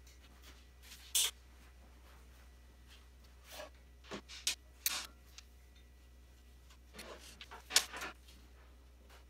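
Scattered light handling noises, short rubs, scrapes and clicks, as a borescope camera's cable is worked into a motorcycle's hollow upper frame member, over a steady low hum. There is a sharper click about a second in, and the loudest one comes near the end.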